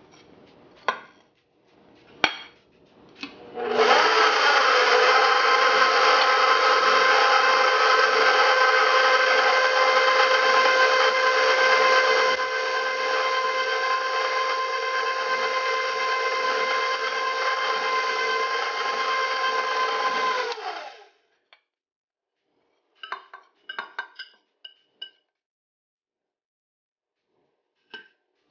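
Electric stand mixer's motor running steadily at low speed, its flat beater turning flour into wet carrot-cake batter in a stainless steel bowl. It starts about four seconds in, eases slightly in level partway through, and cuts off suddenly after about seventeen seconds, with a few light clinks before and after.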